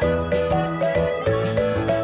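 Bright instrumental background music, a melody of short notes over a steady beat of about four notes a second.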